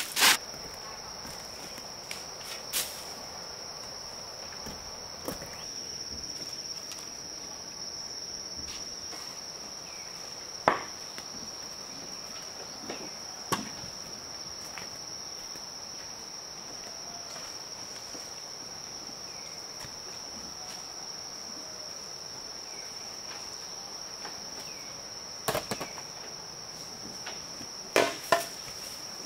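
Insects trilling outdoors, one steady high-pitched tone without a break. A few sharp knocks or taps come at scattered moments, two close together near the end.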